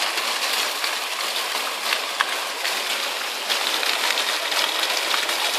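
Ground-level fountain jets spraying and water falling onto wet paving: a steady hiss with small splashes.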